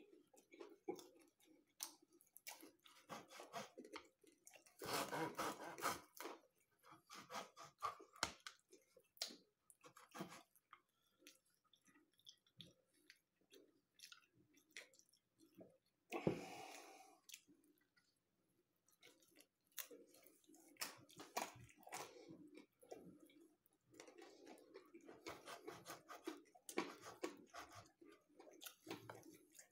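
Eating pizza: chewing and biting, with the clicks and scrapes of a knife and fork cutting it on a wooden board. Faint overall, with scattered sharp clicks and a sudden louder sound about sixteen seconds in.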